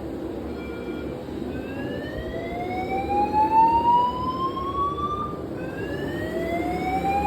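Building fire alarm sounding a slow-whoop evacuation tone: a pitch that sweeps steadily upward for about three and a half seconds, cuts off, and starts rising again about five and a half seconds in. Under it runs a steady rush of water from a burst sprinkler (fire suppression) pipe.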